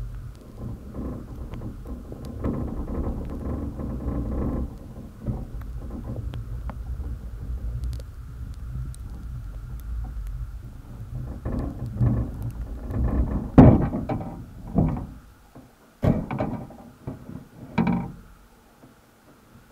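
Muffled low rumble of water against an underwater camera's housing as a crab pot sinks. In the second half come several dull knocks and thuds as the wire pot reaches and settles on the sea floor, stirring up silt.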